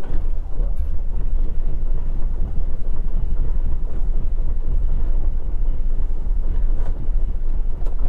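Starter cranking the Velocity XL's Continental IO-550 six-cylinder engine, heard from the cockpit, as a steady low, rough rumble without the engine catching. The battery is low: bus voltage sags below about 10 volts while cranking, which puts the electronic ignitions (E-Mags) into safe mode so they don't fire.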